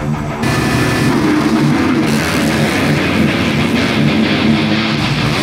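Background rock music with distorted electric guitar and drums; the fuller band comes in about half a second in.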